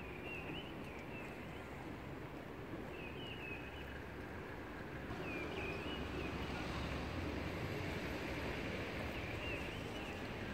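Outdoor town-centre ambience: a steady low rumble of road traffic, with a small bird chirping in short phrases four or five times.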